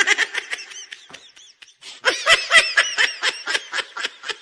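High-pitched giggling laughter in rapid bursts, about four or five a second.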